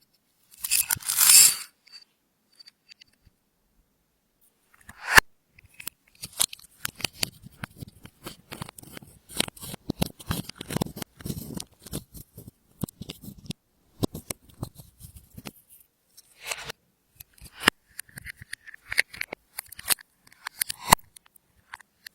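Hands mixing makeup and glitter into clear slime: a dense run of small, sharp sticky clicks and crackles as the slime is worked. About a second in there is a short, loud rustling burst.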